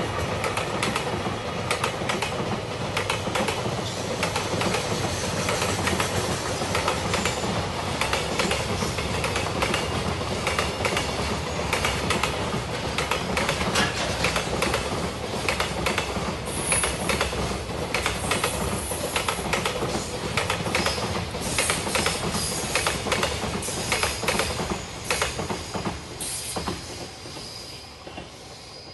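Freight train wagons passing close by, the wheels clattering rapidly over the rail joints with a few brief high-pitched wheel squeals. The sound fades away near the end as the train moves off.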